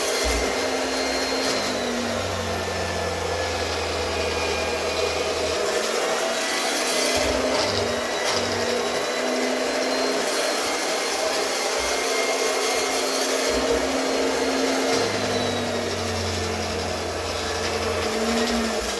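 Octa RC 100 electric round-knife cloth cutter running continuously as it cuts fabric, a steady motor hum with a faint high whine that shifts slightly in pitch now and then.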